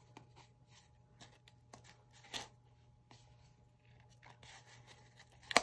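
Faint scratching and rustling of yarn cords being pulled into the slits of a homemade cardboard kumihimo loom disc, with a few light clicks and one sharper click near the end.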